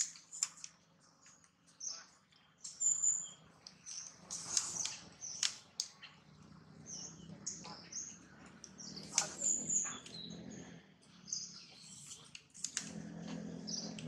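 Small birds chirping in short, high calls, with a few sharp rustles or snaps among the branches. A faint low hum comes in about halfway through.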